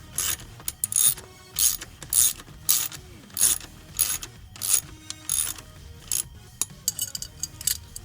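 Ratchet wrench cranking in short rasping strokes, about one and a half a second, tightening the pit bike's front axle nut; the strokes get shorter and quicker near the end.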